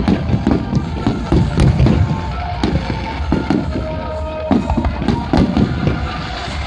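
Aerial fireworks display: many shells bursting in quick succession, a dense run of booms and crackles. It is heaviest in the first two seconds and again about four and a half to six seconds in.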